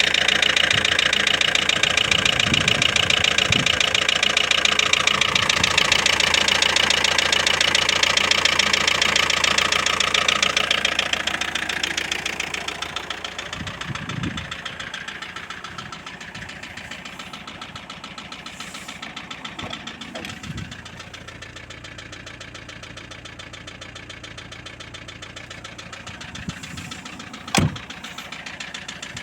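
Used VW 1.9 TDI four-cylinder turbodiesel (AVG/AFN) running with a rapid, steady knocking clatter, the knock being the engine's suspected fault. The clatter is loud for about the first twelve seconds, then drops to a quieter level. A single sharp click sounds near the end.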